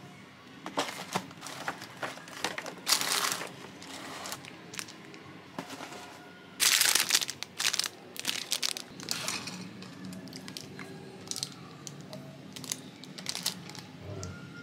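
Clear plastic wrapper around a waffle crinkling and rustling in irregular bursts as it is handled and peeled open, loudest a little past halfway.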